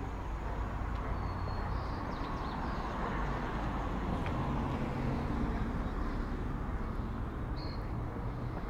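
Street ambience with a vehicle's engine passing, swelling through the middle and easing off, and a few short high bird chirps.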